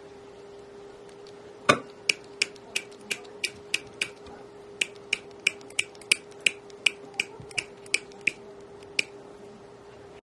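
Wire cutters snipping thin silver wire into short pieces: about twenty sharp clicks, roughly three a second with a brief pause midway, the first the loudest. A faint steady hum runs underneath.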